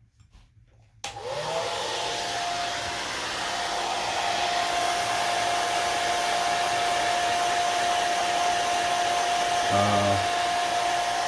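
Handheld hair dryer switched on about a second in, its motor whine rising and then holding one steady pitch over the rush of blowing air, used to heat and soften the adhesive under an iPad's cracked front glass.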